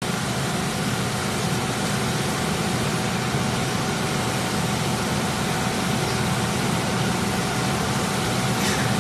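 Steady machine noise: a constant low hum and whoosh with a faint high whine, unchanging throughout, like a running fan or motor.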